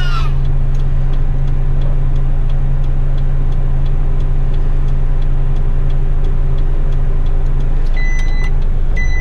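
Truck's diesel engine idling steadily, heard from inside the cab. Near the end two short electronic beeps sound about a second apart.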